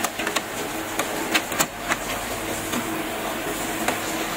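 Sharp plastic clicks and knocks as an HP Smart Tank printer's cartridge access door is pulled open, several in the first two seconds and one more near the end, over a steady background hum.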